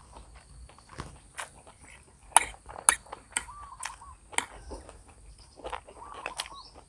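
A person eating instant noodles and sausage: chewing with irregular sharp clicks and smacks, the loudest twice a little past two and three seconds in.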